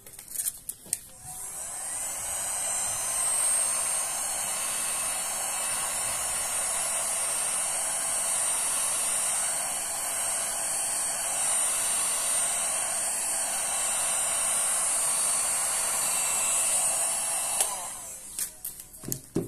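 Electric heat gun running steadily, its fan blowing air with a high whine over the rushing sound, used to push wet resin into wave lines. It comes up to speed about a second or two in and cuts off near the end.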